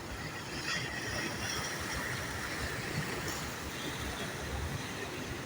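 Steady outdoor seaside background noise: distant road traffic mixed with the wash of the sea, with no single sound standing out.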